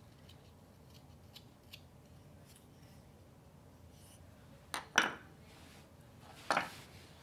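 Carving knife paring shavings from a pine dowel: faint light cuts at first, then a sharp louder cut about five seconds in and another longer scraping stroke about a second and a half later.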